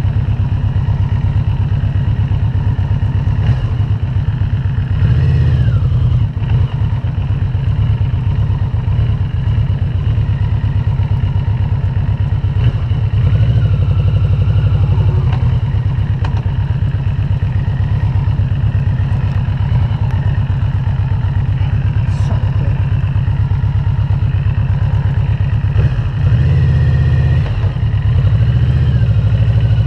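Yamaha VMAX V4 engine pulling the motorcycle slowly across a grass field, a steady low throb with brief bursts of throttle about five seconds in and again near the end.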